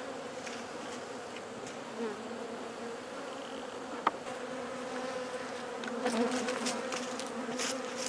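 A swarm of agitated honey bees buzzing around an opened top bar hive: a steady, even hum. A single sharp click about four seconds in, with a few light taps near the end.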